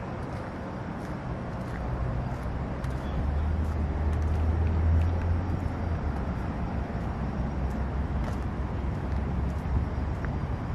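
Road traffic: a low rumble from a passing vehicle on the road, swelling to its loudest about halfway through and then easing to a steady hum.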